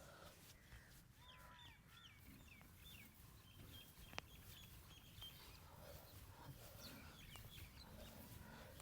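Near silence with faint bird chirps in the background: a quick series of short, repeated high notes about a second in, and a few more later. A single sharp click about four seconds in.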